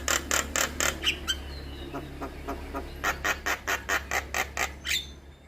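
Javan myna (jalak kebo) calling in a fast string of harsh, evenly spaced notes, about five a second, easing off for a second or so in the middle, then a second run that stops near the end. A steady low hum lies under it.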